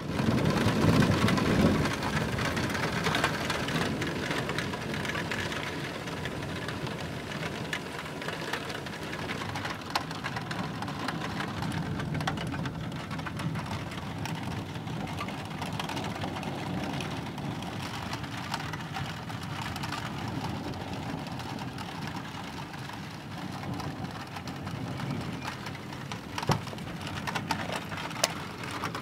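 Steady rain during a thunderstorm, with scattered sharp drop ticks. A low rumble of thunder is loudest in the first couple of seconds and dies away.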